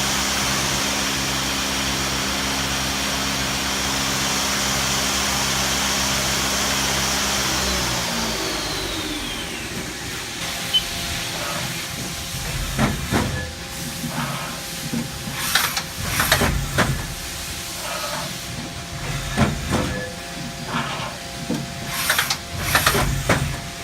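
Haas SL-20T CNC lathe spindle running at 4,000 rpm with a steady hum and high whine, then winding down, its whine falling in pitch about eight seconds in. After that, a string of short sharp hisses and clunks from the machine comes over a faint steady hum.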